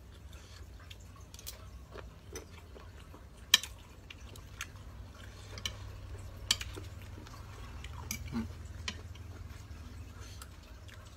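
A metal spoon clicking and scraping against a plate now and then as a saucy seafood salad is scooped up, with quiet wet eating sounds between; the sharpest clicks come about three and a half and six and a half seconds in. A faint low hum runs underneath.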